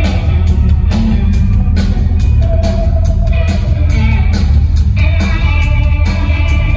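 A rock band playing loud live: electric guitar, bass guitar and drum kit, with a steady drum beat.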